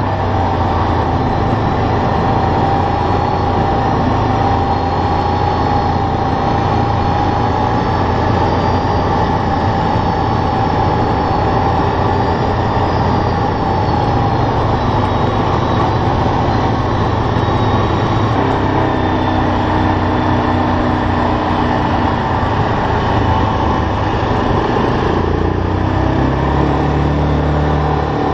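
ATV engine running as the quad rides along at a steady speed, with a steady whine over the engine note. Near the end the engine note rises.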